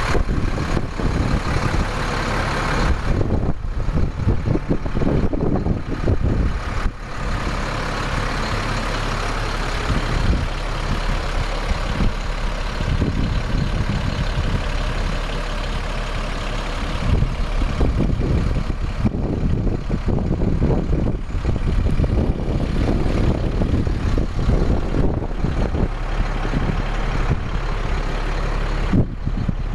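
Freightliner FL80 truck's diesel engine idling steadily, a constant low rumble.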